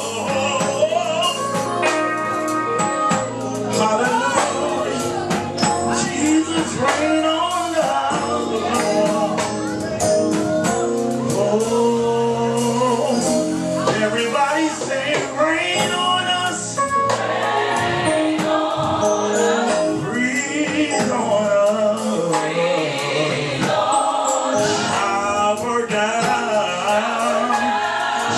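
Worship band playing a gospel song, with singers over the instruments and a tambourine keeping time.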